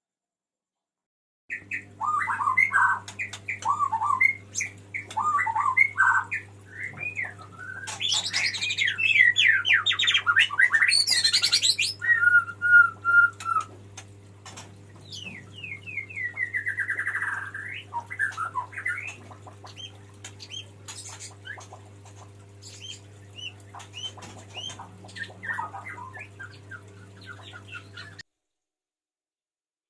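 Male white-rumped shama singing a long, varied song of whistled phrases, rapid sweeping trills and glides. It is loudest in the middle and ends abruptly near the end, over a steady low hum.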